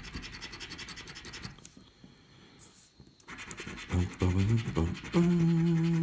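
Rapid scratching of the latex coating off a lottery scratchcard for about a second and a half, then a pause. About four seconds in, a man hums a few low notes, the last one held steady for nearly a second; this is the loudest sound.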